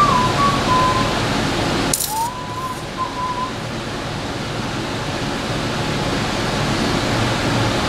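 Someone whistling a few short notes that step up and down in pitch, broken by a sharp click about two seconds in, over a steady hiss.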